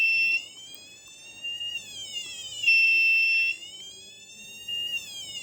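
Electronic siren on a breadboard circuit sounding a buzzy wailing tone. The pitch falls from a high held note and climbs back, about twice, and is loudest while held at the top. A faint noise runs beneath it, which the maker puts down to not having the right components.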